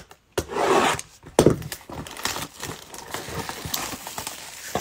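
Plastic shrink-wrap being torn and crinkled off a Chronicles Draft Picks football hobby box, then the cardboard box handled and opened, with scraping and light taps.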